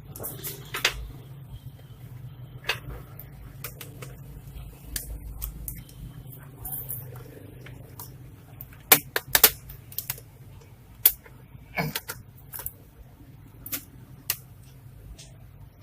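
Irregular sharp clicks and taps of laptop plastic and small parts being handled and pried apart, loudest about nine and eleven seconds in, over a low steady hum.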